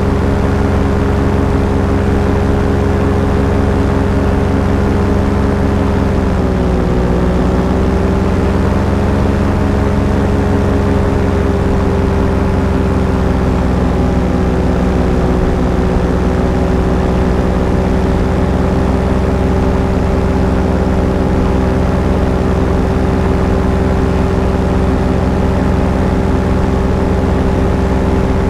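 Engine and propeller of a small aircraft running steadily in cruise flight, a loud continuous drone. Its note dips slightly about six seconds in and settles a little lower.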